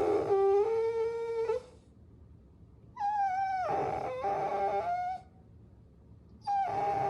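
Puppies whining: long, high-pitched cries of about two seconds each, steady in pitch and dropping at the end. One cry ends just under two seconds in, another runs from about three to five seconds, and a third begins near the end.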